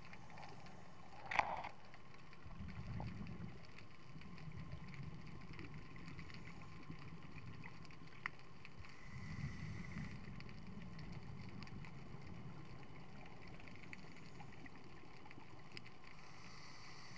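Muffled underwater ambience heard through a camera housing, with two low bubbling swells of scuba regulator exhaust bubbles about seven seconds apart. A sharp click comes about a second and a half in, and a smaller tick near the middle.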